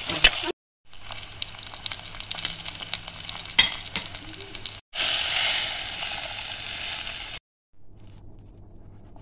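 Lemongrass, red chillies, shallots and garlic sizzling in hot oil as they are fried for the spice base, with sharp clicks of a spoon stirring them in the pan. After a short cut the sizzling comes back louder, and it is much fainter in the last second or so.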